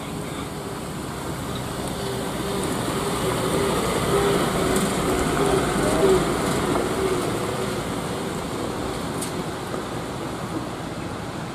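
Loaded Mitsubishi Fuso Canter light truck passing on a gravel road: its diesel engine and crunching tyres grow louder as it approaches, are loudest about six seconds in, then fade as it drives away.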